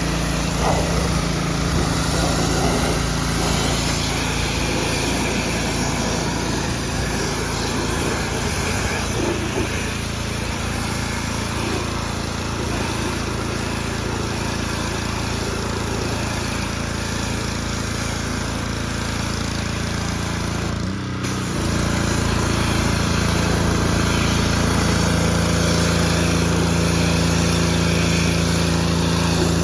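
Gas-engine pressure washer running steadily under load, with the hiss of the water spray over the engine note; the sound briefly drops out about two-thirds of the way through and comes back a little louder.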